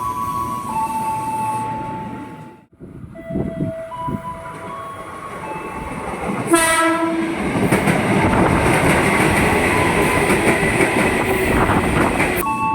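Short melodic chime of stepped tones, then a single short, loud blast of a KRL Commuterline electric train's horn about six and a half seconds in. The train then passes with steady rumbling and wheels clattering over the rail joints.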